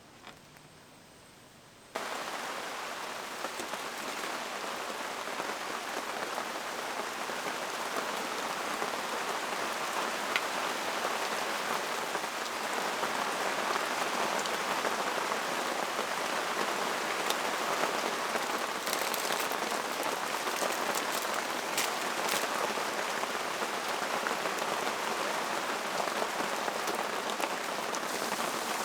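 Rain falling steadily on a surface, coming in abruptly about two seconds in after a quiet start, with a few sharper drop taps now and then.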